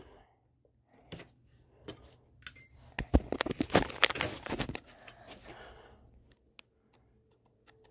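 Clicks and rattling handling noise from a DVD and its case being handled to load the disc into an Xbox: a few single clicks, then a dense flurry of clicks and rattles about three seconds in, then a few faint clicks.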